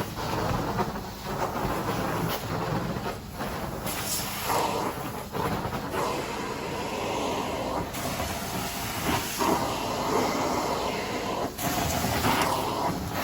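Hot water extraction carpet-cleaning wand hissing with suction as it is worked across a rug, the sound shifting with each pass every second or two, over a steady machine drone.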